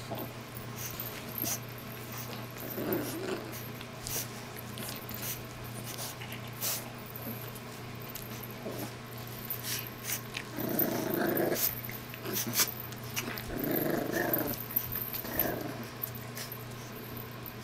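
French bulldog puppies growling in play as they tug at ribbons, in several short bouts, the longest and loudest past the middle, with scattered rustling and scuffling clicks throughout.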